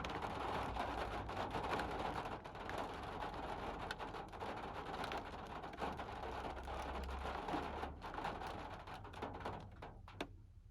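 Steady rain falling, with many sharp drops ticking on a hard surface, dying away near the end.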